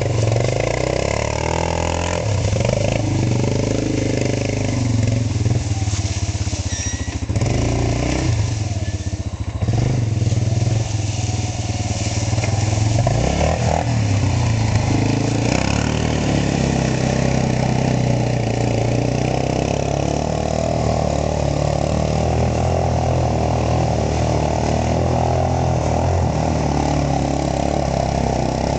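ATV engine revving up and down through the first half, then running more steadily.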